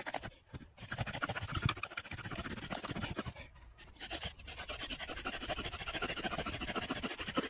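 Hard, rapid panting from exertion while a bow drill is worked: the wooden spindle rasps back and forth in the hearth board. There are two short breaks, about half a second in and again from about three and a half to four and a half seconds.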